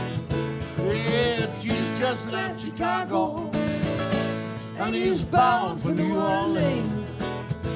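Acoustic guitar played live with a voice singing over it in long, wavering phrases.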